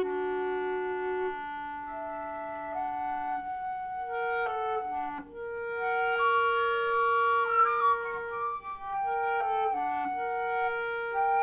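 Flute and clarinet duo playing contemporary classical music: long held notes overlapping, the clarinet low and the flute above it, with a short quick falling run about two-thirds of the way through.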